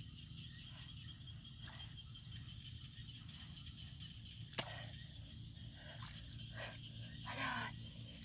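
Hands digging and scooping through wet mud: faint, irregular squelches, with a sharp click about four and a half seconds in and a slightly louder wet scrape near the end, over a steady low hum.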